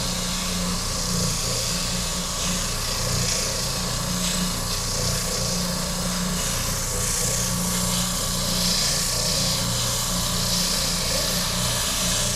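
Electric sander running steadily, its abrasive grinding against the wooden guitar body as the lower horn is smoothed, the scratchy rasp swelling and easing as the wood is pressed to it.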